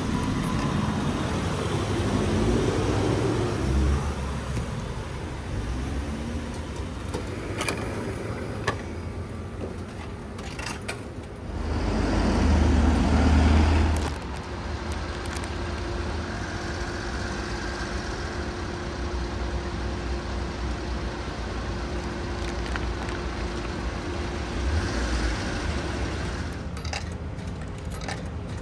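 Coins clinking into a street vending machine's coin slot and a plastic food pouch being torn open and handled, over road traffic. A louder low rumble swells about twelve seconds in and fades two seconds later.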